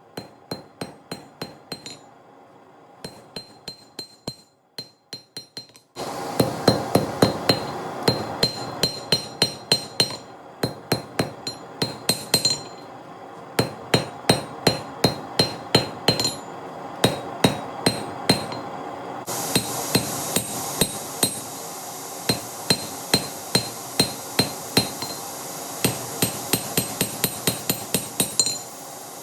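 Hand hammer striking hot steel on an anvil while forging a knife blade, about two to three ringing blows a second with a few short pauses. A steady rushing noise runs under the blows from about six seconds in.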